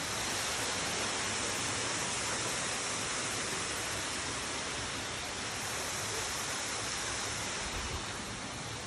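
Steady rush of a waterfall on a forest creek, falling water making an even hiss.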